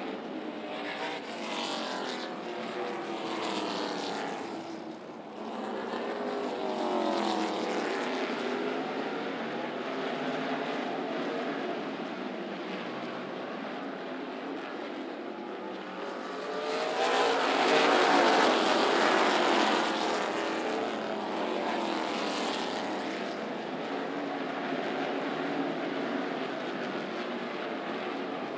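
A pack of NASCAR K&N Pro Series stock cars' V8 engines racing around a short oval, their pitch rising and falling as cars accelerate off the turns and sweep past. The sound swells to its loudest a little past the middle as the pack goes by, then settles back.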